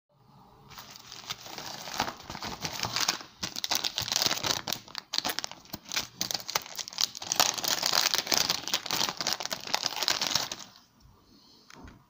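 Plastic packaging, a padded bubble mailer and a zip-lock poly bag, being handled and opened: a dense crinkling with many sharp crackles that stops about eleven seconds in.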